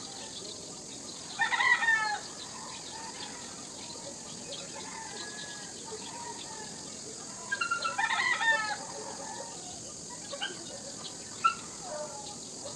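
A rooster crowing twice, once about a second in and again past halfway, each crow about a second long and falling in pitch at the end, with a few shorter calls near the end.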